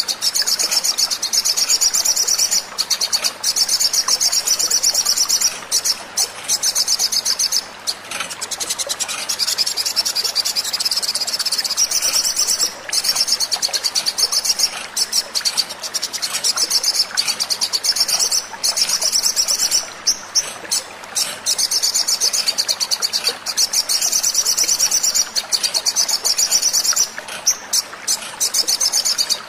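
Olive-backed sunbird song: long runs of fast, high-pitched trilling twitter, broken by brief pauses.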